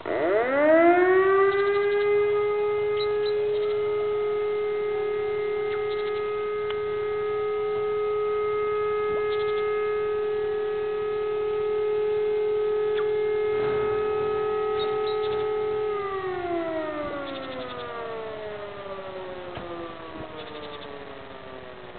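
Electronic civil-defence siren sounding its test signal: it winds up quickly, holds one steady tone for about fifteen seconds, then falls away slowly. A motor-driven fire-brigade siren is faintly audible in the distance.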